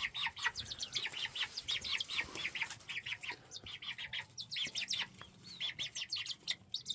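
Young chickens peeping steadily while they eat: a constant stream of short, high, falling chirps from several birds at once, several a second.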